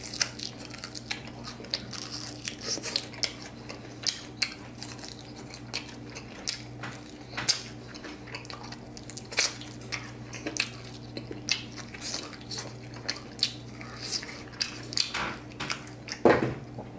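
Chewing and biting on fried pork spare ribs: a run of short wet clicks and mouth smacks, over a steady low hum.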